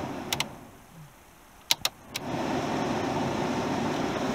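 VW Golf Mk2 heater blower fan switched off and spinning down. The control clicks twice, then three more times about two seconds in, as the fan is switched back on and rises again to a steady rush of air from the vents.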